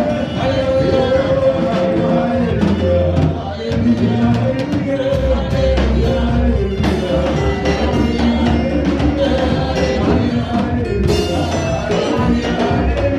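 Live gospel praise-and-worship band playing a song with drum kit and bass, with held sung notes over it.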